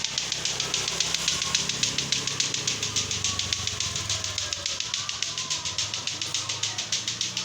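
Rapid, even clicking, about eight clicks a second, with a hissy edge, keeping a steady pace throughout.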